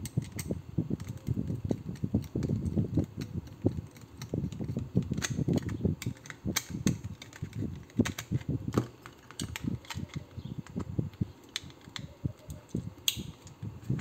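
Small screwdriver driving the centre screw of a plastic surface-mount dimmer switch, with irregular clicks, scrapes and low knocks as the plastic housing is handled on the wooden bench. A sharper click comes near the end.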